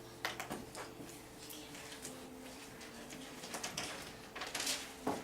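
Dry-erase markers scratching on small whiteboards in short, irregular strokes as words are written, with a louder run of strokes about four and a half seconds in.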